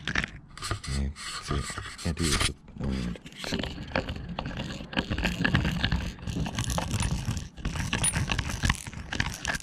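Hand deburring tool's swivel blade scraping around the edge of a bolt hole in a painted steel strut housing, in repeated irregular strokes, cutting away crusty paint and putting a beveled edge on the hole.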